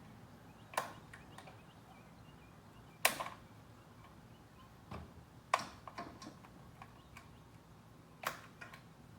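About five short, sharp clicks and knocks spaced a second or two apart, over a faint low hum.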